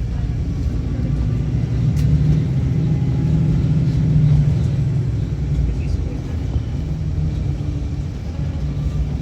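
City bus engine and running gear rumbling steadily, heard from inside the passenger cabin. The rumble swells a couple of seconds in and eases off again. There is a single sharp click about two seconds in.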